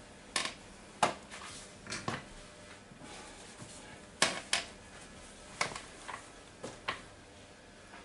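Small hard objects clicking and knocking as they are moved about by hand on a cluttered table, about ten sharp knocks spaced irregularly.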